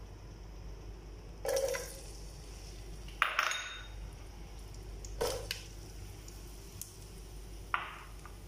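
Chopped garlic and then chopped onion tipped from a bowl into a pot with a little oil, giving about four short clattering knocks of the bowl and pieces against the pot.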